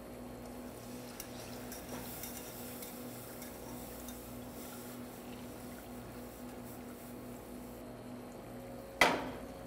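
Wire whisk stirring milk into a butter-and-flour roux in a metal saucepan, faint scraping against the pot, over a steady low hum. A single sharp metallic knock near the end.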